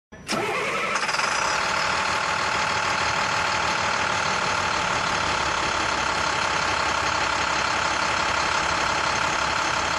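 A loud, steady machine-like drone that starts abruptly just after the start and holds at an even level.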